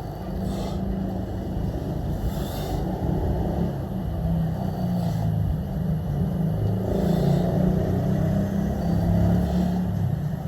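Low rumble of motor traffic passing close by, swelling in the second half, with a short hiss repeating about every two seconds.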